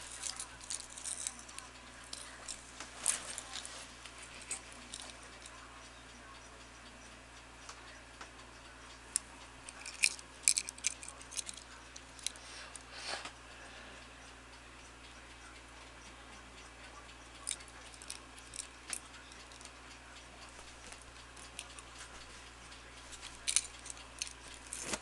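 An old pocket watch ticking, with several bursts of its metal chain clinking and jangling as a cat bats and drags it; the chain clinks are the loudest sounds.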